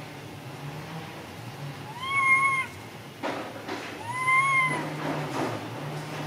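Two clear, high-pitched coo calls from a long-tailed macaque, each about two-thirds of a second long and gently rising then falling in pitch. The first comes about two seconds in, the second about two seconds later.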